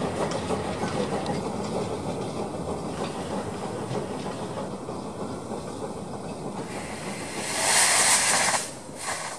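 Narrow gauge steam train's coaches rumbling over the rails as the train draws away, fading slowly. Near the end a loud hiss of steam from the locomotive lasts about a second, followed by a short second hiss.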